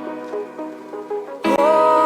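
Background music from a soft song: a quieter passage of short separate notes, then a voice comes back in loudly about one and a half seconds in.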